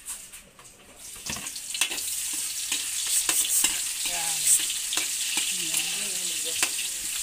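Garlic sautéing in hot oil in a pan, a steady sizzle that grows loud about a second in, with repeated clicks of a utensil stirring against the pan.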